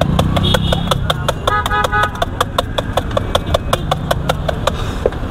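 Metal spoon clinking rapidly against the inside of a stainless steel mug as aloe vera juice is stirred, about six clicks a second, over a low traffic rumble. A brief pitched tone sounds about a second and a half in.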